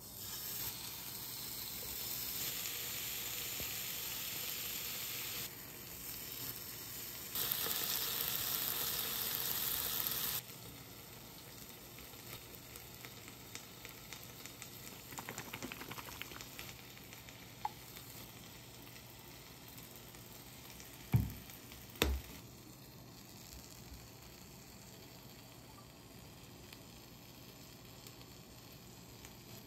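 Marinated beef sizzling on an electric tabletop hot plate, a steady hiss that stops abruptly about ten seconds in. Later come two sharp knocks in quick succession, the loudest sounds.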